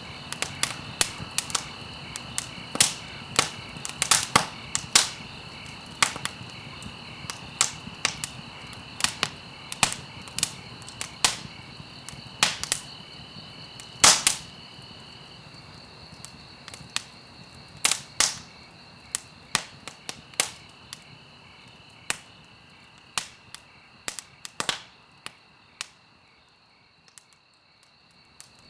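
Wood fire crackling in a fireplace: irregular sharp pops and snaps over a low steady hiss, thinning out and falling nearly quiet near the end.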